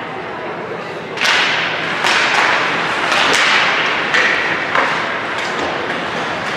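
A series of about eight sharp cracks and thuds, a few tenths of a second to a second apart, each trailing off in an echo, over a steady wash of background noise.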